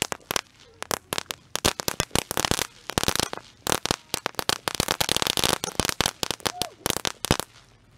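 Firecrackers going off on the ground in a rapid, irregular run of sharp cracks that stops about seven and a half seconds in.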